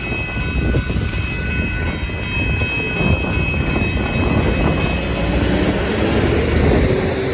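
Loaded Union Pacific hopper cars of a freight train rolling past: a steady heavy rumble of steel wheels on rail with repeated clacks, growing louder in the second half. A faint steady high whine fades out about five seconds in.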